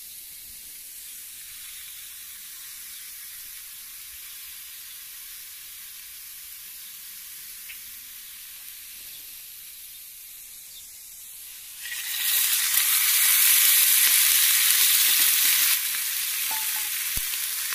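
Chopped onions frying in oil in a pan on a gas stove: a faint, steady sizzle that turns much louder about twelve seconds in and eases slightly near the end.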